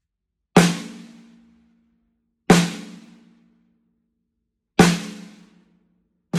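Canopus Yaiba snare drum struck three times with single hits about two seconds apart, each ringing with a clear pitched tone that dies away within about a second. A quick run of strokes starts right at the end.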